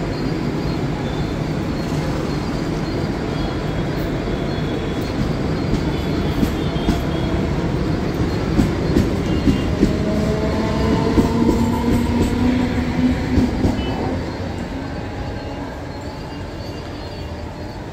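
Mumbai air-conditioned suburban local train pulling out past the platform: a steady rumble of the coaches, with a run of wheel clacks over the rail joints and a whine in the middle. It dies down over the last few seconds as the train leaves.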